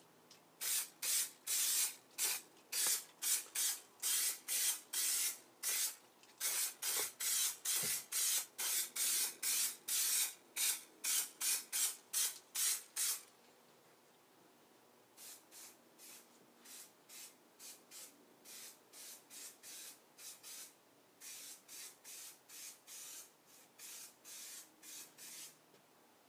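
Aerosol spray adhesive can sprayed in short hissing bursts, about two a second, coating the metal floor. The bursts pause about 13 seconds in, then go on more quietly.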